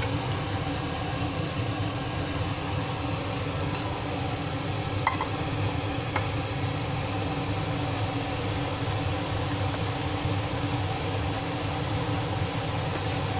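A steady hum and hiss throughout, with a few light clinks from a china plate and a wooden spoon against a cooking pot as cooked meat and gravy are tipped in and stirred, about four to six seconds in.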